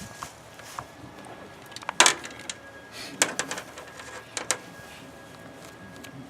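A few sharp clicks and clatters of hard objects being handled, the loudest about two seconds in, then a short cluster a second later and two more a second after that.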